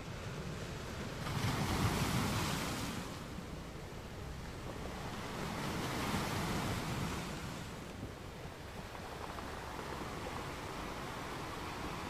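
Sea waves washing in on the shore: surf noise that swells twice, about four seconds apart, the first wave the louder.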